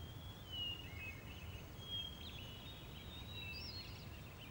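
Faint outdoor ambience: small birds chirping in short whistled notes several times over a low steady rumble, with a quick trill near the end.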